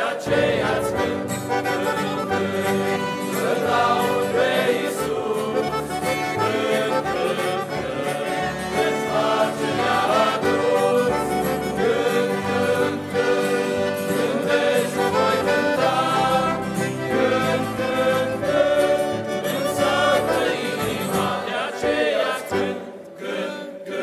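Choir of teenage boys singing a Christian hymn in Romanian, accompanied by accordion, guitar and keyboard. The music thins briefly near the end.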